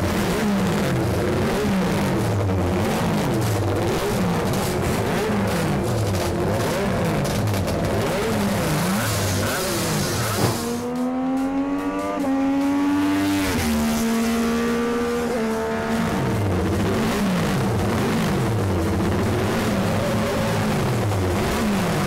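MV Agusta four-stroke Grand Prix racing motorcycle engine revved hard in repeated throttle blips, its pitch rising and falling about once a second. In the middle a racing motorcycle accelerates on the track, its pitch climbing and dropping at two gear changes before holding steady, then the repeated revving resumes.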